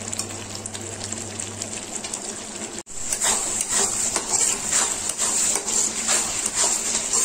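Spiced onion-tomato masala sizzling as it fries in a kadai, with a spatula stirring and scraping it in repeated strokes. The sound drops out for an instant just under three seconds in.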